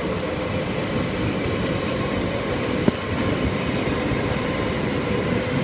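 Steady vehicle rumble with a faint constant tone, and one sharp click about three seconds in.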